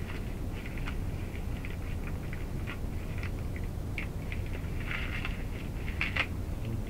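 Wrapping paper crinkling and rustling as a present is unwrapped by hand, in short scattered crackles that are busiest about five and six seconds in, over a steady low hum.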